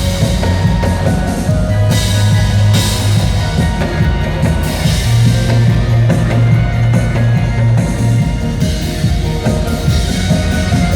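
Backing music of a trot song with a steady drum beat and strong bass, an instrumental break with no singing.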